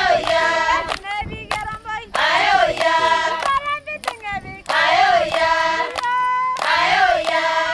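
Maasai women and children singing in chorus, a short sung phrase repeated about every two to two and a half seconds, with sharp hand claps falling between the phrases.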